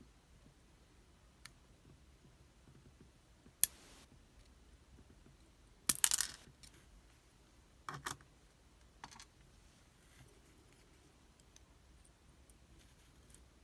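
Small metal lock parts clicking and clattering on a hard surface as a pin-tumbler lock is taken apart. There is a single sharp click a few seconds in, the loudest burst of clatter about six seconds in, then softer clicks around eight and nine seconds.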